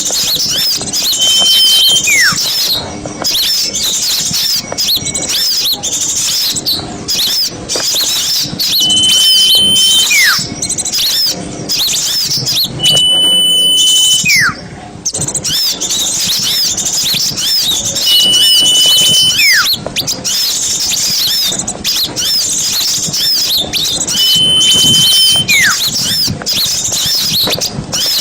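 A bird-lure recording of many small songbirds chirping and twittering at once in a dense, loud chorus. Through it, a clear held whistle and a falling whistle come back about every five seconds, like a repeating loop.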